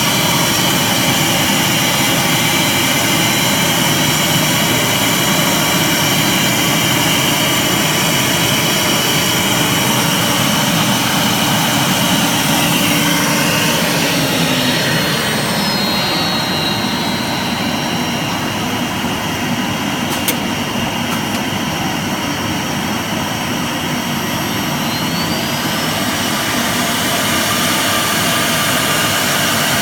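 CNC wood router with pneumatic spindles running: a loud, steady, dense machine whine. A few of its tones slide down about halfway through and one slides up near the end, with a single sharp click in between.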